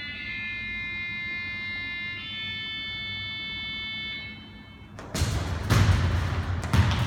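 Electronic countdown tone of a Speedcourt training system: a steady buzzer-like tone that changes pitch about two seconds in and stops about four seconds in. About five seconds in come sharp thuds of a football being kicked and quick footsteps on the court floor.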